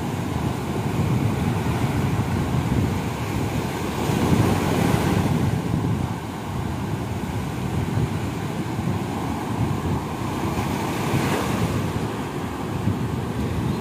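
Sea surf breaking and washing up a sandy beach, with wind rumbling on the microphone; the wash swells louder about four seconds in and again near the end.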